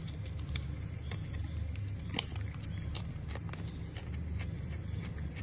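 Cat licking a squeeze-tube treat: an irregular run of small wet tongue clicks and smacks, one sharper about two seconds in, over a steady low hum.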